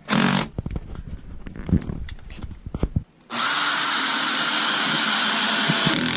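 Cordless drill-driver: a short burst at the start, handling clicks and knocks, then a steady run of about three seconds with a high whine from a little over three seconds in, driving a screw into the inverter's mounting.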